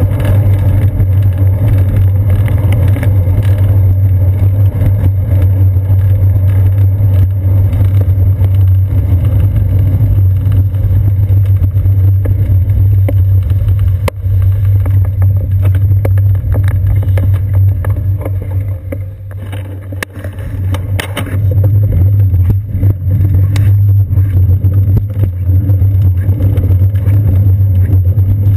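Steady, loud low rumble of wind and road vibration picked up by a seat-post-mounted GoPro in its housing while the bicycle rolls along a concrete path. It eases off briefly about two-thirds of the way through, then returns.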